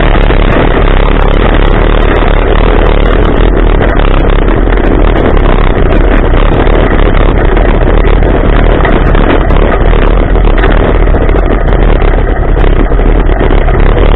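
Polaris RZR side-by-side driven hard on a dirt track: loud, steady engine and driving noise with scattered sharp clicks.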